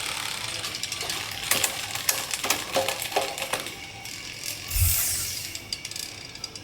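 Quick runs of mechanical ratcheting clicks during bicycle assembly, with a dull thump about five seconds in. Music plays underneath.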